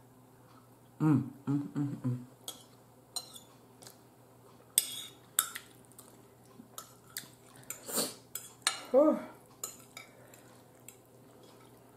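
A metal fork clinking and scraping against a dinner plate as food is cut and picked up, in scattered sharp clicks. Brief wordless voice sounds come about a second in.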